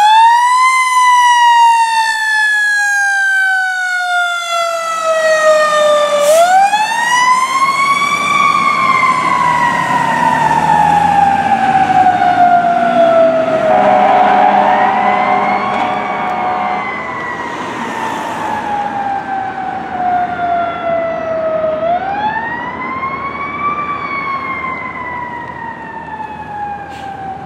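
Fire engine siren in a slow wail. Each cycle rises quickly and falls slowly over about eight seconds, with a truck engine rumbling low underneath from about five seconds in. The siren fades toward the end.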